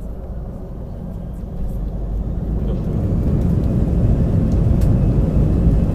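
Low engine rumble, steady and without a clear pitch, growing louder from about two seconds in.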